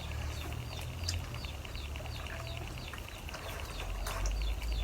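A small bird chirping steadily, short high chirps repeating about three times a second.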